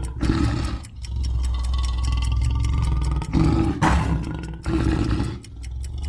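Lion roaring: a series of long, deep roars with short breaks between them.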